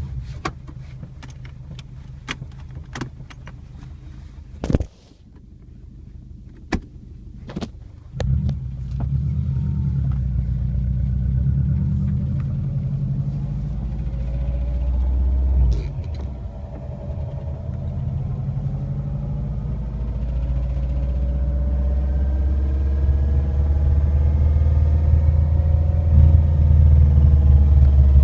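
Subaru WRX with scattered clicks at first, then a loud low rumble from about eight seconds in, with several tones slowly rising in pitch over the second half. This is the strange noise the owner cannot identify.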